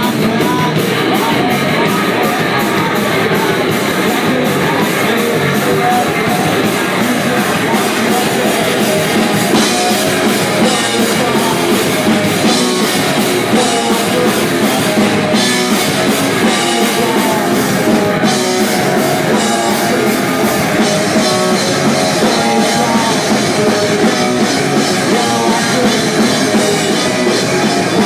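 A rock band playing live, loud and steady: electric guitars over a drum kit.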